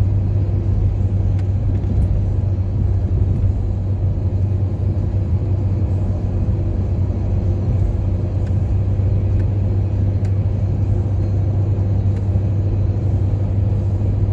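Steady low rumble of a car driving along a sealed road, heard from inside the cabin: engine and tyre noise.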